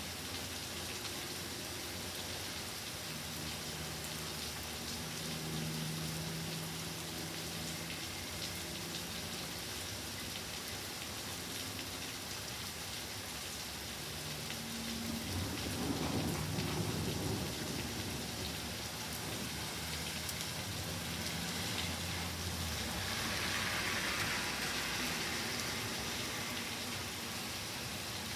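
Steady rain falling in a thunderstorm, with a rumble of thunder swelling up about halfway through.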